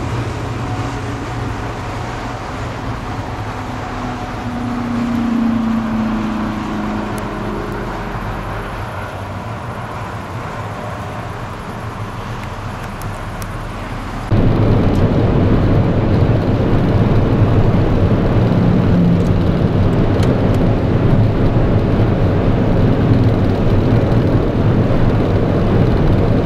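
Cars passing on a motorway, one car's engine note swelling as it goes by about five seconds in. About fourteen seconds in the sound cuts suddenly to louder, steady road and wind noise heard from inside a car at motorway speed.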